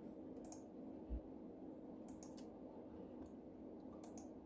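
Computer mouse clicking a few times, faint and sparse, over a low steady hum; a single dull thump about a second in.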